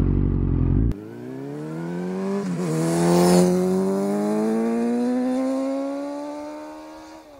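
Yamaha FZ8 Fazer's inline-four engine through a MIVV Strom GP aftermarket exhaust. It is heard briefly from on board, cut off abruptly about a second in, then it accelerates past with the engine note climbing steadily. There is a short dip at a gear change about two and a half seconds in, it is loudest as the bike passes just after three seconds, and it fades as the bike pulls away.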